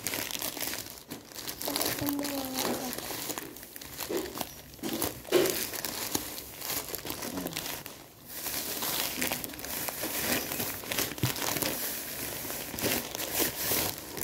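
Thin black plastic parcel bag crinkling and rustling, irregular and continuous, as it is handled and torn open by hand.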